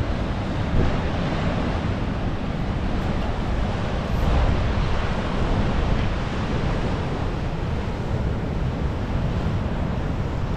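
Heavy surf breaking against a rocky shore, mixed with strong wind buffeting the microphone. It is a steady wash of noise, deepest at the low end, swelling briefly about a second in and again around four to six seconds in.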